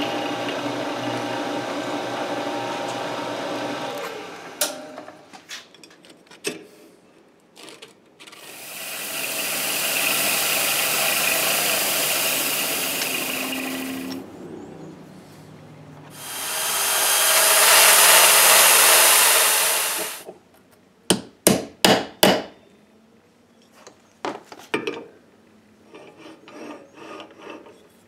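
Milling machine running with its end mill cutting steel, winding down after a few seconds. Two long stretches of steady rushing noise follow, the second louder. Then come a quick run of five or so sharp metal knocks and a scatter of small clicks as steel parts are handled.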